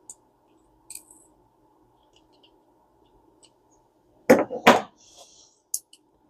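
Vintage spinning reel and its small parts being handled: a few faint clicks, then two loud knocks close together about four seconds in, followed by a couple of light ticks.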